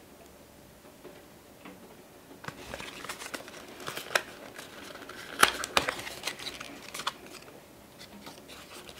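A small cardboard ink carton being opened by hand: card rustling and scraping with several sharp clicks as the flap is worked open, starting about two and a half seconds in and dying away shortly before the end.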